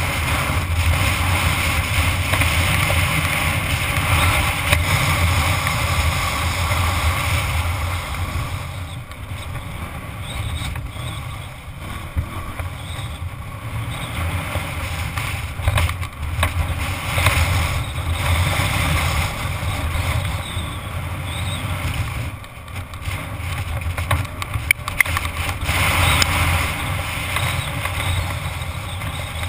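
Dirt bike engine running as it is ridden, the engine note rising and falling with a few brief dips, heard from a helmet-mounted camera with wind rushing over the microphone.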